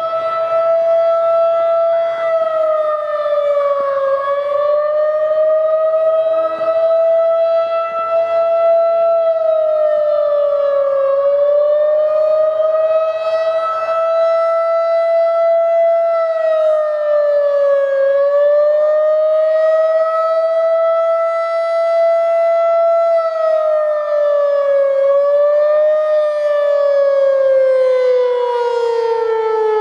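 Federal Signal 2001-SRN rotating electromechanical warning siren sounding a steady test tone, its pitch dipping briefly about every seven seconds as the head turns. Near the end it starts to wind down, falling steadily in pitch.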